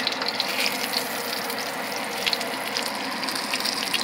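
Breaded chicken cutlet sizzling in hot olive oil and butter in a skillet, a steady hiss dotted with fast crackles of spitting fat. A sharp tick right at the start as the cutlet is turned over with metal tongs.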